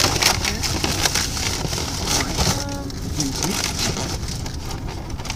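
Steady low road rumble inside a moving car, with an irregular crackling, rustling noise over it.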